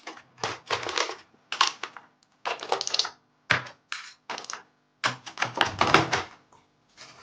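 Irregular clusters of clicking and clattering from the small parts of a pre-built alloy inner frame for a 1/100 Gundam model kit being handled and unpacked.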